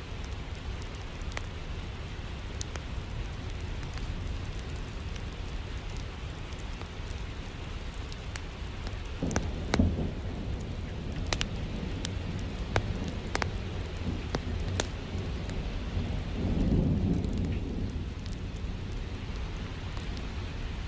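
Steady rain with scattered sharp crackles from a wood fire, and two low rolls of thunder, one about halfway through and a longer one later.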